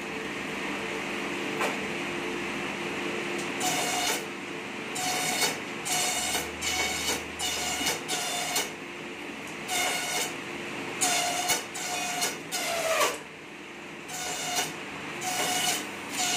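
Mini slicer for satay-skewer bamboo running with a steady motor hum. From about four seconds in come a dozen or so short, pitched screeching bursts as pieces are fed through the blade, one of them ending in a falling whine late on.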